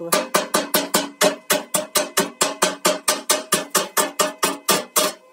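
A hammer knocking slag off a fresh arc-weld bead on thin steel, in a fast even run of sharp metallic strikes, about six a second, with the steel ringing briefly after each.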